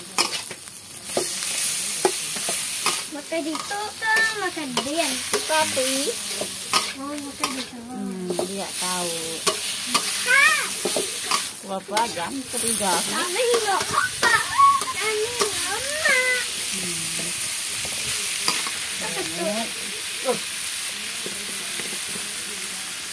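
Shredded bamboo shoots sizzling in a wok while a metal spatula stirs and scrapes them, clicking against the pan. Wavering high-pitched calls sound faintly in the background through the middle stretch.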